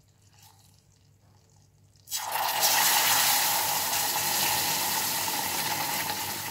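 Milk poured into a saucepan of hot butter-and-flour roux, which starts hissing loudly all at once about two seconds in and keeps sizzling and bubbling as the milk goes in: the first addition of milk to a béchamel base.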